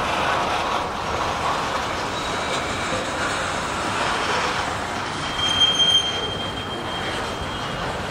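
Freight cars of a long Union Pacific train rolling slowly past, a steady rumble of steel wheels on rail. From about five seconds in, a high wheel squeal rings out for a couple of seconds and is loudest near its start.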